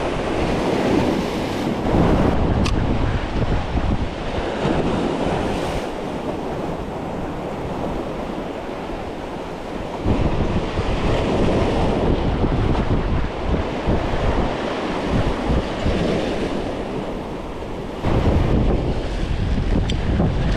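Wind buffeting the microphone over surf washing against the rocks of a jetty.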